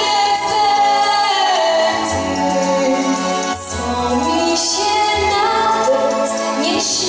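A 13-year-old girl singing a Polish Christmas carol into a stage microphone, with instrumental accompaniment underneath. She holds long, drawn-out notes.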